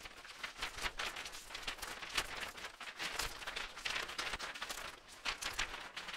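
Irregular rustling, crinkling and scraping of packaging being handled, with no steady rhythm.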